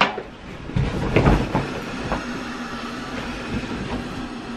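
A thump as a person climbs onto an air mattress, then a steady rushing hum as the air mattress deflates under him.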